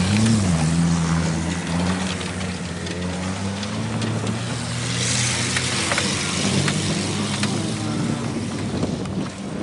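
Race-car engines on a dirt track: a rev that swoops up and down about the start, then one engine held at steady high revs, with a few scattered clicks and knocks.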